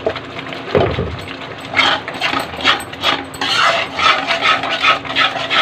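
Metal spatula stirring and scraping thick masala paste in a kadhai as it fries, with repeated scrapes about two a second. A single knock comes about a second in.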